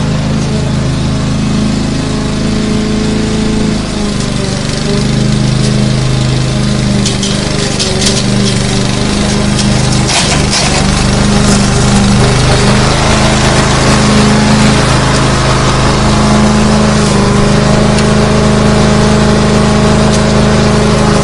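Lawn mower engine running steadily under load, its pitch wavering slightly. Brief crackling ticks come through about halfway.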